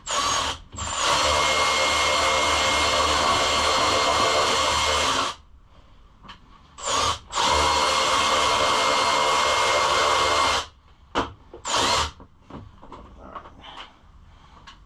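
Cordless drill/driver running in two long steady runs of about four and three seconds, with short trigger blips around them, driving a fastener in through tight plastic bodywork.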